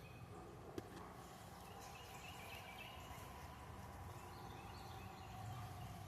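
Faint birds calling in short repeated notes over quiet outdoor background, with a single soft click about a second in.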